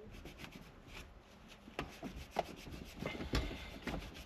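A part being scrubbed clean by hand: faint, uneven rubbing strokes with a few louder scrapes, the loudest a little after three seconds in.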